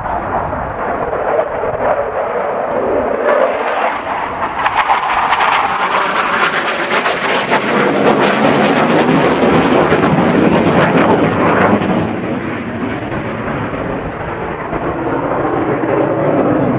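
Saab JAS 39 Gripen C's single Volvo RM12 jet engine in a display pass: a loud jet roar with crackle, rising in pitch and building to its loudest past the middle, then easing off and swelling again near the end.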